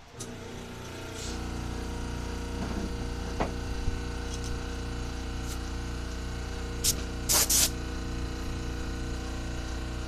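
Electric air compressor starting up and running steadily with a regular pumping pulse, refilling a tank whose air pressure has been used up. About seven seconds in, an air blow gun gives three short hissing blasts.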